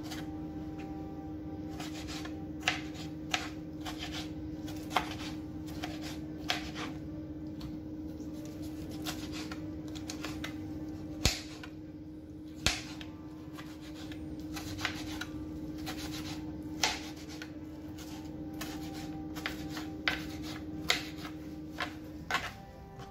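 A small kitchen knife cutting tomatoes on a plastic cutting board, giving irregular sharp taps of the blade against the board with soft rubbing between them. A steady low hum underneath stops shortly before the end.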